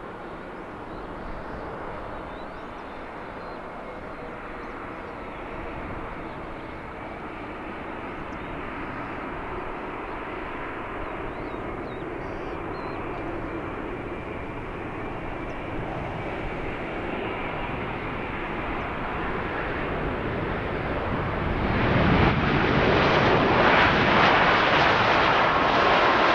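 Jet airliner's engines: a steady rushing noise that slowly grows louder, then about three-quarters of the way through jumps to a louder, harsher rush.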